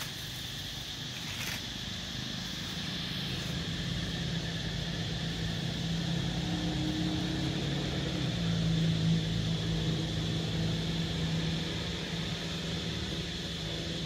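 A motor vehicle's engine passing, growing louder to its loudest about nine seconds in and then easing off, over a steady high insect drone.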